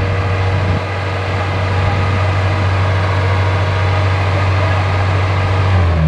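Small tracked rice combine harvester running steadily, its engine and threshing machinery giving a loud, even drone.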